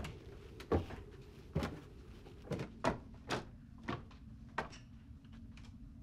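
Footsteps on old wooden attic stairs and floorboards: a string of sharp knocks and creaks, irregular, about one or two a second.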